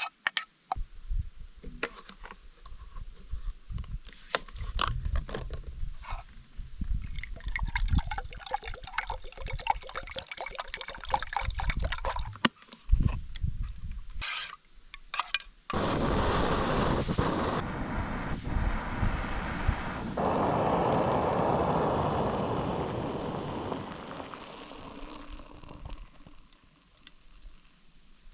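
A run of small clicks and knocks. Just past halfway, water starts pouring steadily into a vessel, as when filling a pot or kettle for tea, and the pour fades away a few seconds before the end.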